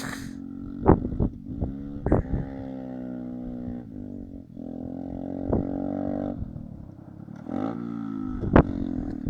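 Kawasaki mini ATV engine running and revving up and down while being driven, rising in pitch twice. A few brief sharp thumps are scattered through it.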